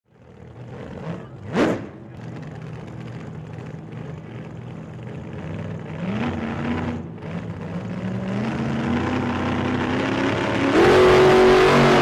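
A short whoosh about a second and a half in, then an engine revving up, its pitch stepping higher twice and getting louder toward the end.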